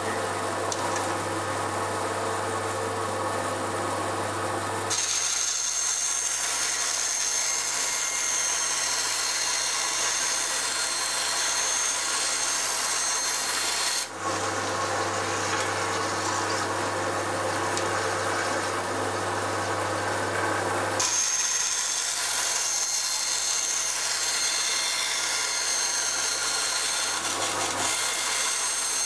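Benchtop bandsaw running with a steady motor hum, its blade cutting through a thin sheet with a rasping hiss and a thin high whine. The cutting starts about five seconds in, gives way to the bare motor hum after a short break near the middle, and resumes about three quarters of the way through.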